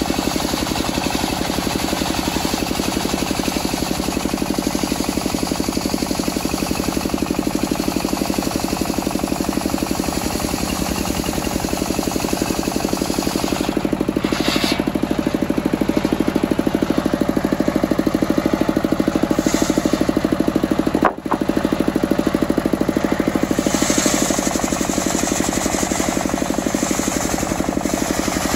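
Single-cylinder stationary diesel engine running steadily with a rapid knocking beat, belt-driving a circular saw as it rips a teak log. Brief brighter, hissier stretches come through as the blade bites the wood, and the sound drops out for a split second about two-thirds of the way through.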